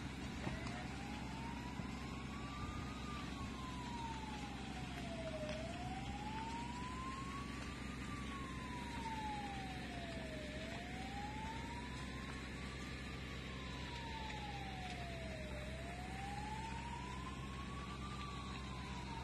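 Emergency siren sounding a slow wail, gliding up and down about every five seconds, over a steady low rumble.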